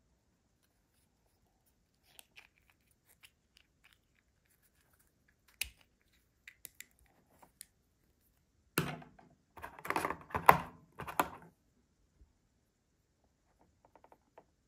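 Plastic packaging crinkling as it is handled and opened, with scattered small clicks; a burst of sharp crackling from about nine to eleven and a half seconds in is the loudest part.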